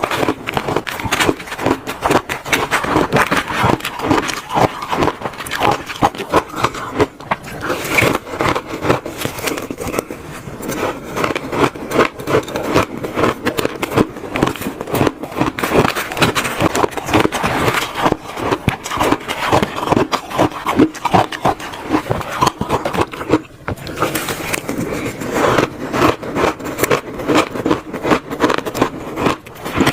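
Close-miked crunching and chewing of frozen shaved ice, a dense run of crisp cracks and crunches with a brief pause about two-thirds of the way through.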